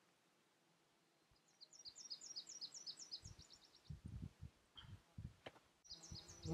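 A small songbird singing a quick trill of repeated high chirps, twice: a longer run of about a second, then a short one near the end. Under it are low, uneven rumbles from wind buffeting an uncovered microphone.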